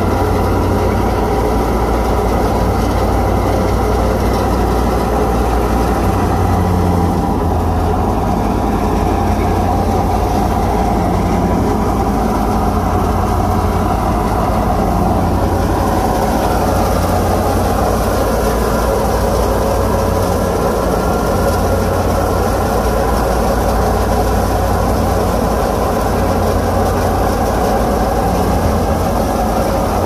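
Wheat threshing machine running loud and steady as sheaves are fed through it, separating the grain from the straw, with a constant low engine hum beneath the machinery.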